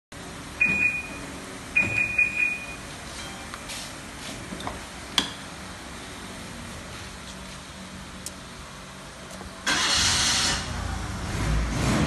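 Aftermarket smart car alarm on a Suzuki SUV chirping as the key fob button is pressed: a short high chirp, then a longer one about a second later, the alarm's arm/disarm confirmation. A few light clicks follow, and near the end comes a loud burst of rushing noise about a second long.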